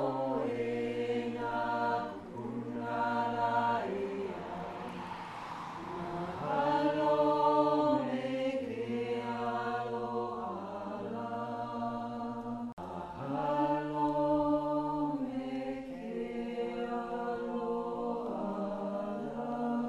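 A group of voices chanting together in long held notes that step from pitch to pitch, with short breaks between phrases.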